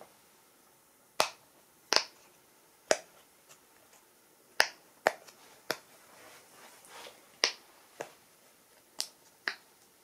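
Silicone Pikachu-shaped pop-it fidget toy having its bubbles pushed through one at a time with the fingers: about ten sharp pops at irregular intervals.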